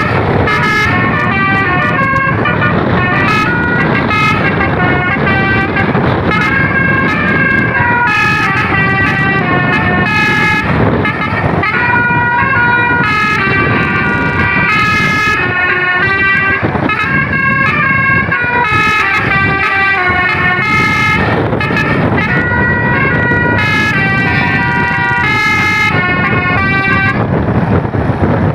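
Telolet basuri multi-trumpet air horn on the Dhemobillindo Andromeda bus playing a long melody of quickly changing notes, over steady engine and road noise.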